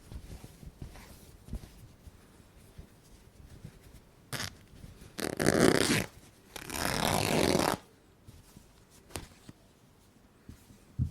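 Cloth being ripped by hand: after a short tug, two long rips of about a second each come midway, with soft handling rustles and small clicks around them.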